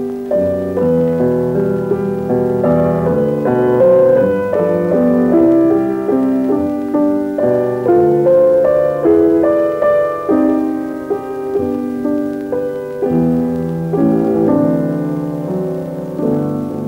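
Closing theme tune played on piano: a melody over chords, note after note without a break.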